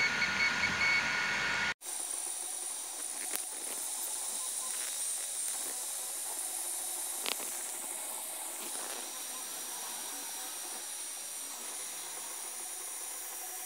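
Steady hiss with a faint high whine from the Alfawise U20 3D printer's cooling fans running while it prints. The sound drops out for a moment about two seconds in, then the hiss carries on unchanged.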